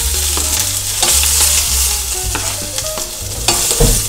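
Ginger and scallions sizzling in hot oil in a stainless steel frying pan, stirred with a spatula that knocks and scrapes against the pan several times. The aromatics are being sautéed until fragrant.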